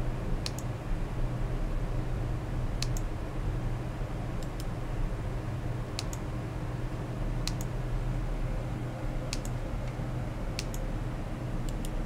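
Computer mouse clicking about eight times, each a quick double click, over a steady low hum.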